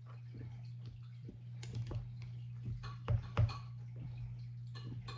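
A plastic debubbler stick pokes and scrapes down inside glass canning jars of chopped chicken, vegetables and broth, giving irregular light clicks and taps against the glass, with two louder knocks a little past the middle. This is the debubbling step, releasing trapped air from the packed jars before pressure canning. A steady low hum runs underneath.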